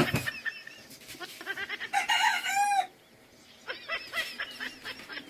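A rooster crowing once, about two seconds in, a call of about a second that falls in pitch at its end. A sharp knock at the very start and a few shorter calls about four seconds in.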